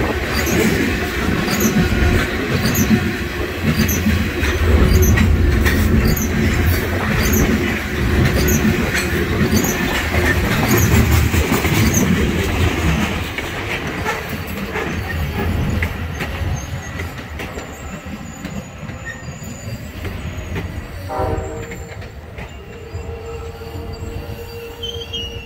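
A loaded coal train's freight cars roll past close by, with a heavy rumble of wheels on rail and a regular clicking. The sound fades through the second half. Near the end a brief pitched sound is followed by a steady whine.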